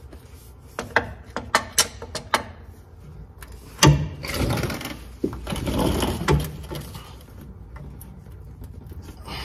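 Big channel-lock pliers working on a tight spin-on oil filter: a quick series of metal clicks and knocks, a sharper knock just before four seconds in, then a few seconds of scraping and rubbing as the grip is worked and slips.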